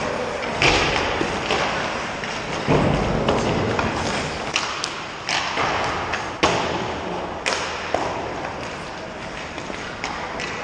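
Ice hockey pucks and sticks: a string of sharp cracks and thuds as pucks are shot and strike the boards, the goalie and the ice, over a steady hiss of skates and rink noise.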